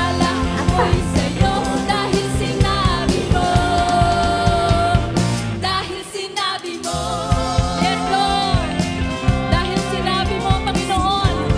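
Background pop song with a singer over a steady beat; the bass and beat drop out briefly about six seconds in, then come back.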